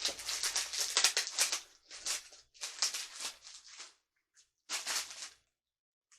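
Packaging wrap crinkling and rustling in several irregular bursts as it is handled and pulled off a newly unboxed stand-mixer part.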